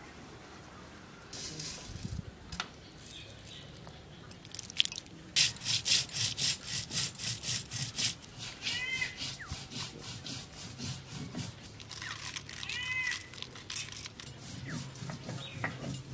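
Dried red chillies and spices being ground by hand on a flat stone slab with a stone roller: a rasping rub and scrape. About five seconds in it becomes a fast, even back-and-forth of about five strokes a second, then turns irregular.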